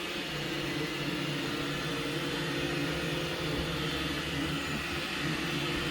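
iRobot Roomba 960 robot vacuum running: a steady hum with a couple of held tones over a continuous hiss.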